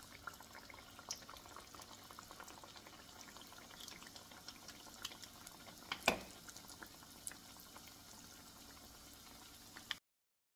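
Dough pieces frying in shallow hot oil in a pan: a faint, steady sizzle scattered with small crackling pops. A single sharp click about six seconds in, and the sound cuts off suddenly near the end.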